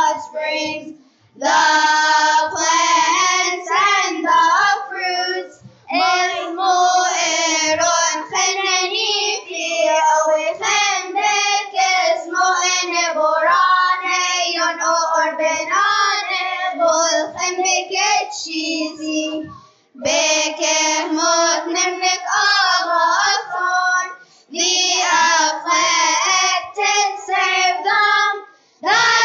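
Children's choir singing without instrumental accompaniment, in phrases separated by several short pauses.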